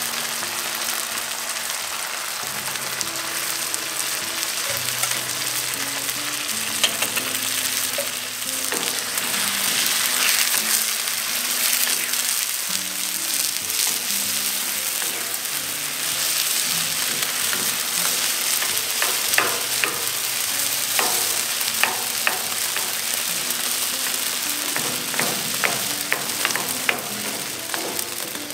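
Tomato and onion sauce sizzling in a cast-iron skillet, with a wooden spatula stirring and scraping through it in the second half, making sharp clicks against the pan.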